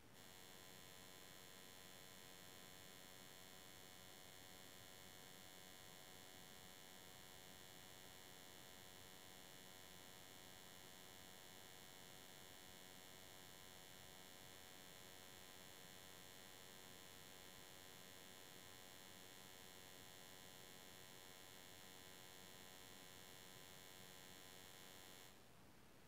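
Near silence with a faint, steady electrical hum of many even tones, which starts at once and cuts off abruptly about a second before the end.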